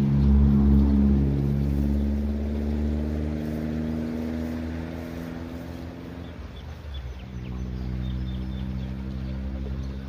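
An engine running, a steady drone that is loudest near the start and slowly fades, its pitch shifting about two-thirds of the way through.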